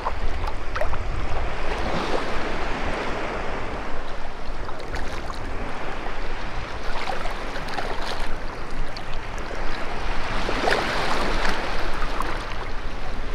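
Seawater sloshing and splashing around a person wading waist-deep while walking a large tarpon through the current, with wind on the microphone. The splashing swells a few times and is loudest about ten to eleven seconds in.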